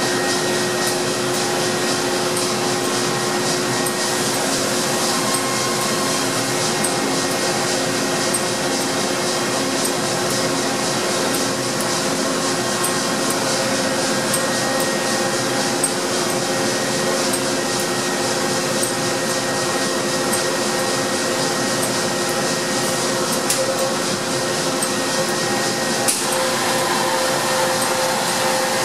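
Mori Seiki SL8-C CNC turning center powered up and running, giving a steady mechanical hum with a few held tones, with faint clicks here and there.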